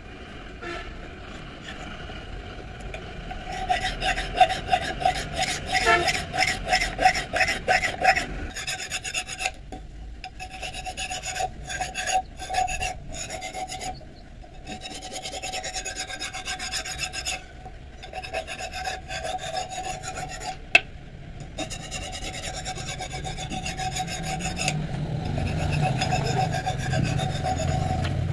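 A steel hand file scraping along the edge of a curved steel chopping blade, sharpening it, in runs of quick back-and-forth strokes broken by short pauses.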